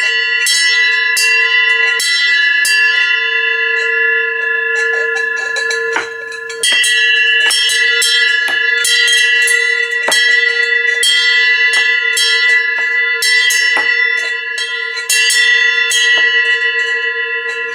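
A small steel bell rung by hand, its clapper striking again and again over a steady ringing tone made of several pitches. The strikes pause briefly about six seconds in, then resume.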